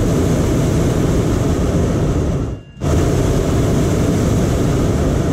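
Hot air balloon's propane burner firing in a loud steady roar, cut off for a moment about two and a half seconds in, then firing again.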